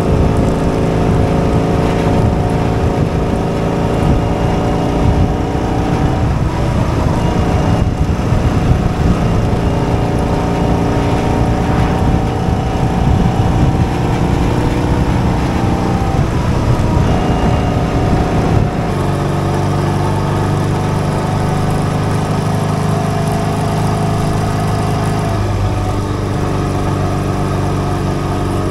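Motorcycle engine running while riding along a road, with wind noise over the microphone. About two-thirds of the way through, the engine note drops and holds steadier.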